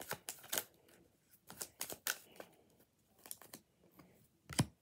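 Tarot cards being shuffled and handled: a run of quiet, crisp flicks and snaps from the card stock, with a louder snap near the end.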